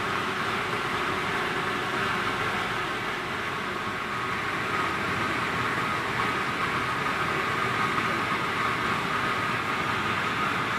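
Industrial boiler plant running: a steady, even mechanical noise that carries on without a break.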